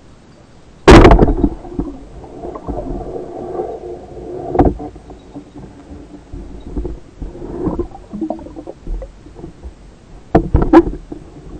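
Band-powered speargun fired underwater: a sharp, loud crack about a second in, followed by rumbling and scraping, with single knocks later and a pair near the end. Heard through an underwater camera housing.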